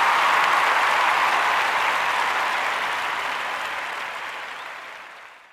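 Applause from a crowd, dropped in as a sound effect, steady at first and fading out to silence near the end.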